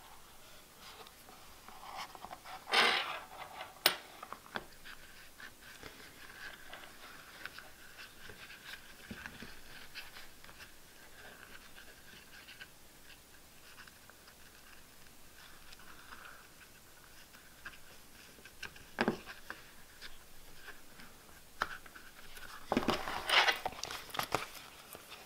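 Hands handling a leather notebook cover and its elastic cord: soft rubbing and scraping with scattered light clicks, louder bursts of handling about three seconds in and again near the end as the notebook is lifted.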